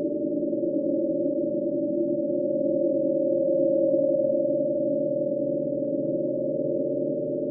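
Synthesized ghost sound effect: a steady drone of several low held tones, with nothing high-pitched, swelling slightly about halfway through.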